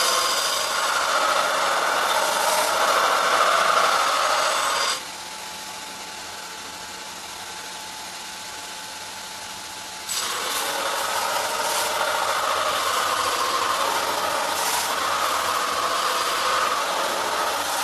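Steady, noisy machine sound with a rasping, rattling quality. It drops away sharply about five seconds in and comes back at full level about five seconds later.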